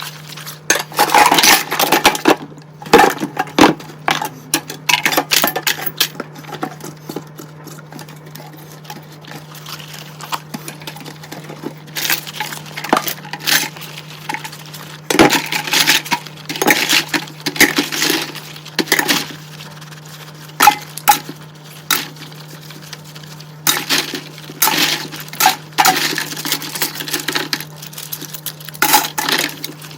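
Dishes and cutlery clinking and knocking against each other in a sink as they are washed by hand, in bursts of clatter with quieter stretches between, over a steady low hum.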